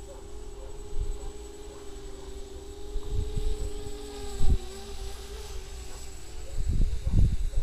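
FPV quadcopter's electric motors and propellers buzzing steadily, several close pitches drifting slightly against each other. Low thumps break in, the loudest about four and a half seconds in and again near the end.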